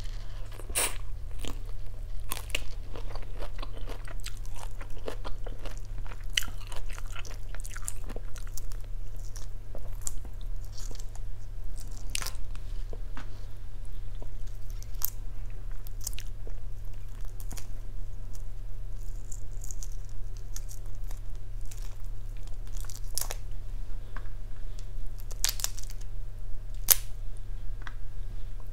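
Chewing and biting into salt-and-chili grilled shrimp, with scattered crunches and sharp clicks as shrimp shells are cracked and peeled by hand, over a faint steady low hum.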